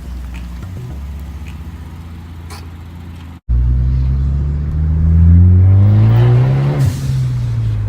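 2016 Ford Focus ST's turbocharged four-cylinder, breathing through a catless downpipe and muffler-deleted exhaust, running steadily at low revs. Then, much louder, it revs climb under acceleration for about three seconds, broken near the end by a brief crackle as the revs fall back to a steady lower drone. This is the tune's pops-and-crackles setting.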